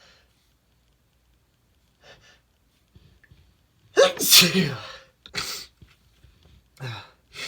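A man sneezes once, loudly, about four seconds in, a voiced sneeze falling in pitch with a breathy burst. It is followed by a few shorter breathy sounds from his stuffy nose.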